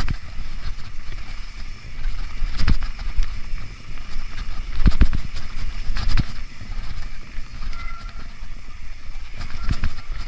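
Mountain bike riding downhill on a rough forest trail: a steady rumble of tyres and wind on the camera microphone, broken by several sharp knocks and rattles as the bike hits bumps, the loudest about five seconds in.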